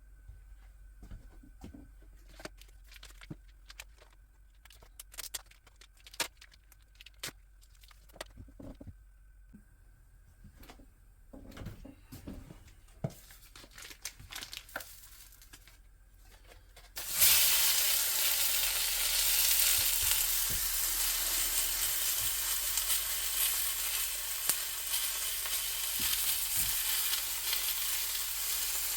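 A few light clicks and knocks of handling cookware, then a little past halfway bacon goes into a hot pan and starts sizzling, a sudden onset that then holds steady.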